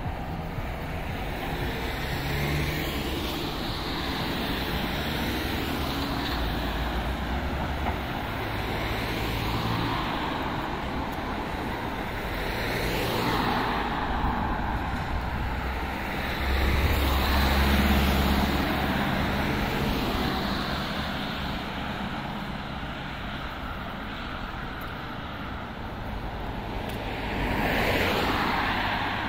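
Street traffic: a steady wash of road noise with vehicles passing one after another. The loudest pass, with a low rumble, comes about halfway through, and another swells up near the end.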